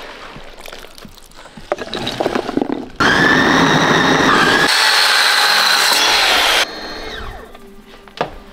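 Electric food chopper running, chopping fresh chili peppers: a steady motor whine that starts abruptly about three seconds in and cuts off about three and a half seconds later. Before it come light knocks and rustling.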